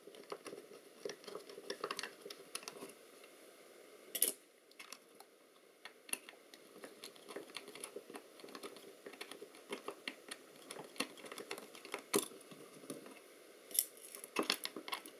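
Screwdriver working a screw out of a circuit board's mounting frame, giving a stream of small clicks and scrapes with a few sharper clicks. The sharpest come about four seconds in and about twelve seconds in, and several more come near the end.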